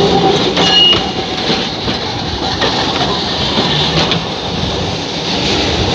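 Electric trams rolling past close by on the rails, with a steady rumble, sharp clicks from the wheels over the track and a brief high squeal about a second in.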